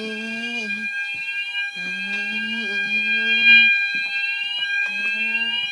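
Fire alarm sounders going off after a manual call point test. A high tone sweeps upward over and over, a little under twice a second, over steady high tones, with a lower tone that comes and goes in stretches of one to two seconds.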